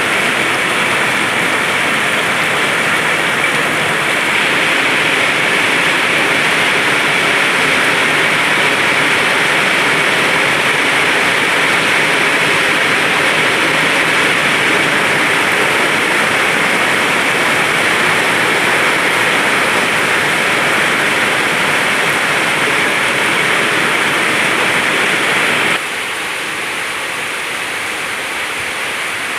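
Rain pouring down steadily as a dense, even hiss. The level drops suddenly near the end, then the rain carries on more softly.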